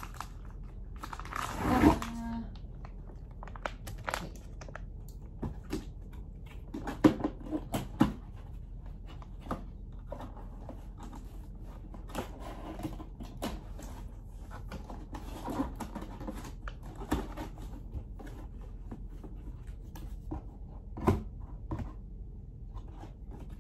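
Paper and cardboard packaging of a bag of cat litter being handled and opened: rustling, crinkling and tearing paper, with scattered knocks and taps. The loudest is a noisy burst about two seconds in, with sharp knocks a few seconds later and again near the end.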